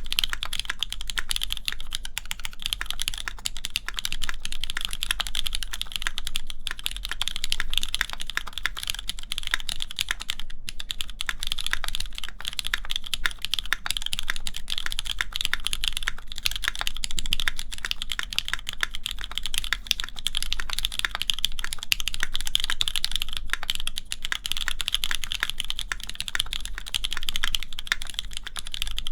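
Continuous fast typing on a Keycult No. 2 mechanical keyboard with lubed linear Cherry MX Black switches, 62 g springs and GMK keycaps on a full aluminium plate: a dense, steady run of keystroke clacks with a brief pause about ten seconds in.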